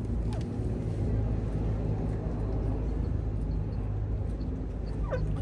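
A steady low drone like a running engine, with one short falling chirp about five seconds in.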